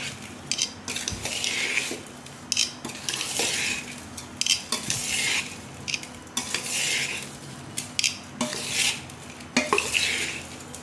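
Steel spoon stirring oily, spice-coated raw mango pieces in a stainless-steel bowl: uneven scraping strokes about once a second, with sharp clinks of the spoon against the bowl.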